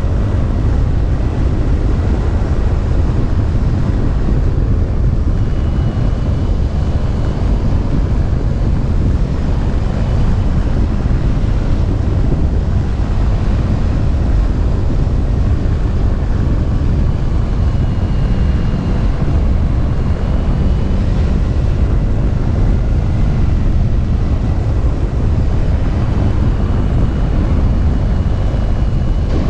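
Wind rushing over the boom-mounted camera microphone of a motor glider thermaling with its motor off, a loud steady rush heaviest in the low end. Faint thin whistles come and go over it.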